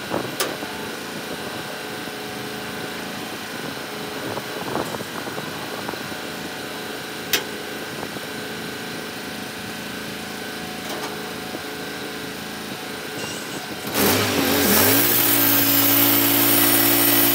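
Wood-Mizer portable band sawmill with its engine running steadily at idle, with a few light clicks. About fourteen seconds in, the engine revs up sharply: the pitch rises and then settles into a steady, loud high run as the band blade spins up before the cut.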